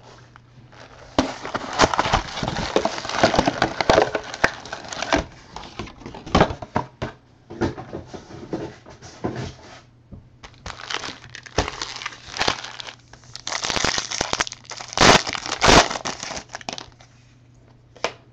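Foil trading-card pack wrappers being torn open and crinkled by hand, in irregular bursts of rustling with a few sharper crackles late on.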